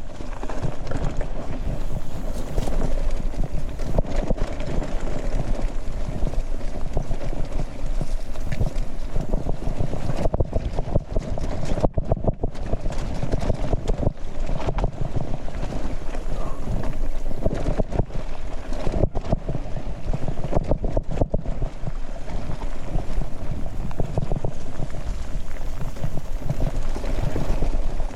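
Mountain bike descending at speed: continuous rough wind noise on the action-camera microphone, with the bike rattling and knocking over bumpy ground.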